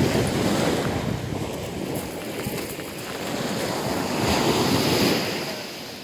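Wind buffeting the microphone over small waves breaking on a pebble shore, gusting louder about four to five seconds in.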